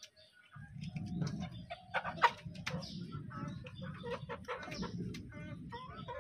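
Domestic chickens clucking in many short calls, over a low rumble that sets in about half a second in.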